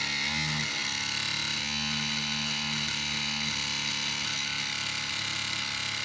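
Small DC hobby motor running steadily with a constant high whine.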